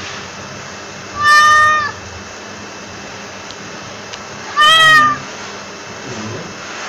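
Domestic cat meowing twice: two short, clear meows about three and a half seconds apart, over a steady background hiss.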